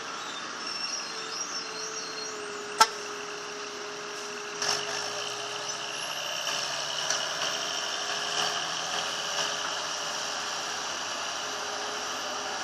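Diesel engine of a low-powered excavator running steadily while it digs, with a rough, harsh note. A sharp clank a little under three seconds in and a few knocks around five seconds in.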